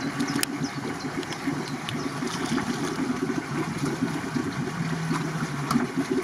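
The engine of a mud-covered off-road SUV runs steadily while it sits in a deep water-filled rut, with water sloshing around it and a few light clicks.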